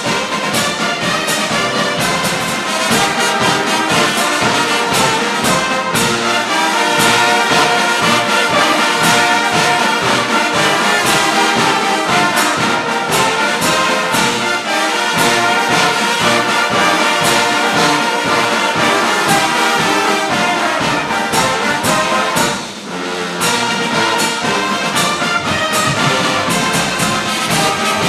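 Brass band music playing at full volume with a steady beat, briefly dropping out a little over twenty seconds in.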